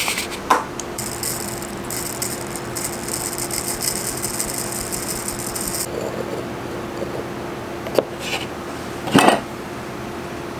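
Granular black powder pouring from a glass jar into a metal jar lid: a fine trickling rattle of grains for several seconds that cuts off suddenly. It is followed by a sharp click and a brief rattling scrape of handling loading tools and a brass case, over a steady low hum.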